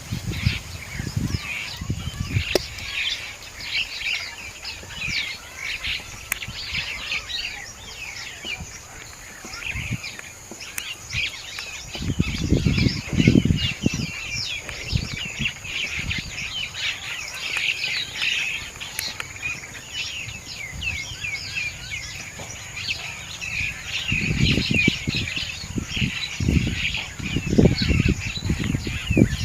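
Many small birds chirping and twittering continuously, with low rumbling surges about midway and again near the end.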